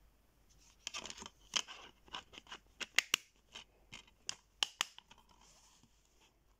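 Plastic DVD case and disc handled: a quick series of sharp plastic clicks and clatters as the disc is pressed onto the case's centre hub and the case is closed.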